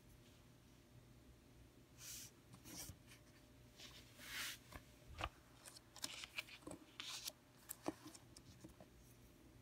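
Faint scratching and tapping of a bamboo reed calligraphy pen (qalam) on paper, in short irregular strokes from about two seconds in, with one longer scratch around the middle and a sharper click later on.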